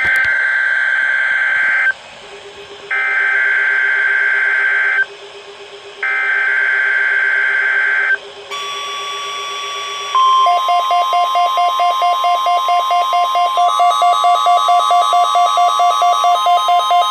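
NOAA Weather Radio test alert coming from a weather radio's speaker: three harsh two-second bursts of SAME digital header data about a second apart, then the steady 1050 Hz warning alarm tone starting about eight seconds in. From about ten seconds in, a louder pulsing electronic beep, several pulses a second, sounds along with the tone.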